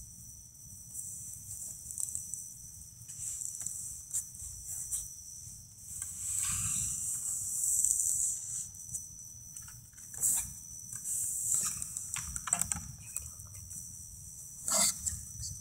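Night insects chirring in a steady, high-pitched chorus. A few brief rustles or knocks are scattered through it, the loudest near the end.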